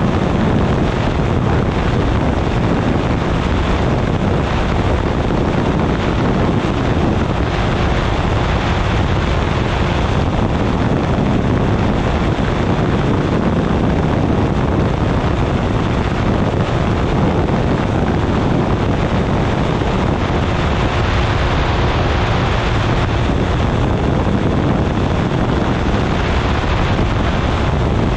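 Weight-shift microlight trike in steady cruise flight: its engine and pusher propeller drone evenly under a heavy, constant rush of wind on the wing-mounted camera's microphone.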